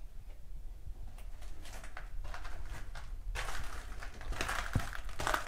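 Footsteps crunching and scraping over debris, sparse at first and denser and louder in the second half.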